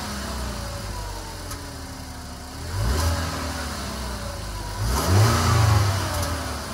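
2012 Ford Explorer's 2.0-litre EcoBoost four-cylinder engine revved twice and let fall back, about three seconds in and again about five seconds in, the second rev louder. On deceleration the turbo's worn, loose wastegate rattles.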